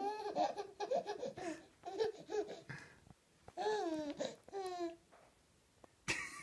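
Baby laughing and babbling in short bursts, with two high, falling squeals about four seconds in and a louder laugh starting just before the end.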